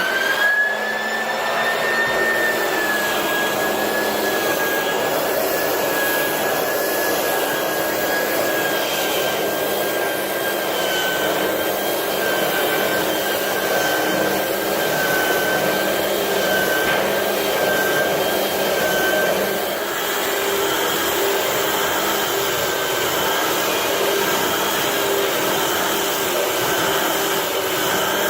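Hardwood floor sanding machine running steadily, a high motor whine over a loud rushing noise.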